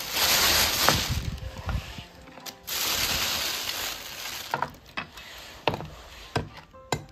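Rustling and scraping for the first few seconds, then a meat cleaver chopping frozen goat meat on a wooden cutting board: about half a dozen sharp knocks at uneven gaps.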